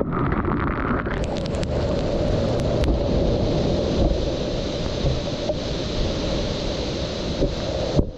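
Steady rush of ocean surf and water washing over an action camera's microphone, with wind buffeting the mic, briefly dropping out near the end.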